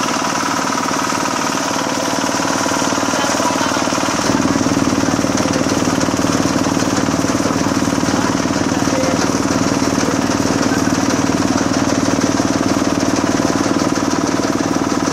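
Zaaga Inotech rice combine harvester running steadily at close range, its engine and machinery growing louder and fuller about four seconds in.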